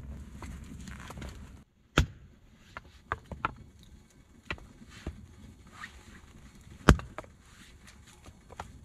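Low rumble that cuts off abruptly about a second and a half in, then scattered light clicks and taps with two sharp knocks about five seconds apart, as a man handles things at a small wood stove on a floor of log rounds.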